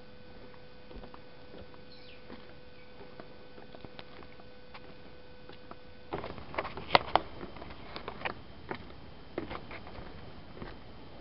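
Footsteps going down wooden boardwalk stairs: faint taps at first, then a louder run of footfalls clattering on the planks from about six seconds in.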